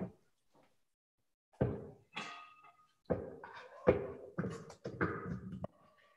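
A spoon knocking and scraping against a frying pan as cooked potatoes and leeks are scooped out: about eight separate knocks starting a bit over a second and a half in, some ringing briefly.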